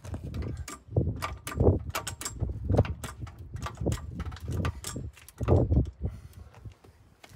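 Trolley jack being pumped to lift the rear of the car: a run of handle strokes with metallic clicks and clunks, roughly one or two a second.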